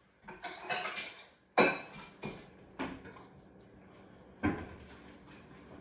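Kitchenware being handled: a short rustle, then a sharp clattering knock about a second and a half in, the loudest, followed by a couple of lighter knocks and another knock past halfway.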